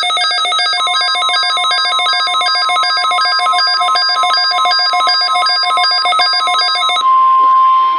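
NOAA Weather Radio's steady 1050 Hz warning alarm tone, sounded as the weekly test of the warning device. Over it a rapidly pulsing, multi-tone electronic alert chirps many times a second and stops about a second before the end, leaving the steady alarm tone on its own.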